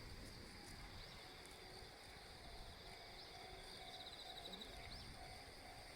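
Near silence outdoors: a faint, steady insect trill with a few brief high chirps.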